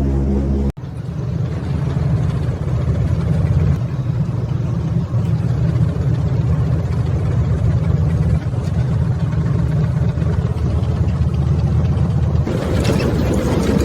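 Propeller airliner's piston engines droning steadily. There is a brief dropout under a second in, and the sound turns brighter and hissier near the end.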